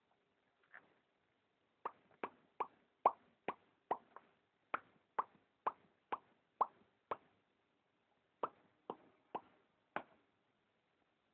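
Sleeping cat making a run of short, faint clicking sounds, about two a second, with a brief pause partway through.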